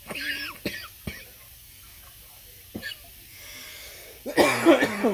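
A person's short vocal sounds, a cough or brief untranscribed utterances, one at the start and a louder, longer one near the end, with a few sharp clicks between them.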